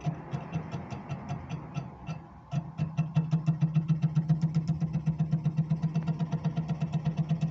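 Fiat Punto Evo heater blower fan motor running at full 12 volts, a low hum with a fast, even pulsing that gets louder and steadier about two and a half seconds in. The motor has play on its axle and worn brushes, which is why it failed.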